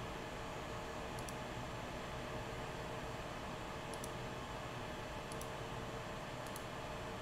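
Four light computer mouse clicks, each a quick double tick of press and release, over a steady background hiss with a faint hum.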